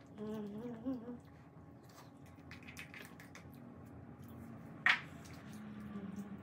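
Breakfast eating at a table: soft squishy spoon and mouth noises from eating oatmeal, with a man's short hums near the start and again near the end. One sharp clink of tableware about five seconds in is the loudest sound.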